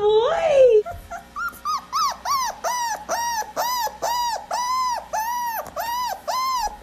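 A dog's high, short whining yelps in an even run, about three a second, each rising and then falling in pitch. They follow a longer wavering cry in the first second.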